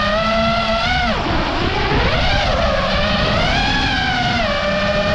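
FPV quadcopter's brushless motors and propellers whining, heard from the GoPro mounted on the drone, over a rush of wind noise. The pitch drops sharply about a second in as the throttle is cut, then climbs and falls again twice as the pilot works the throttle.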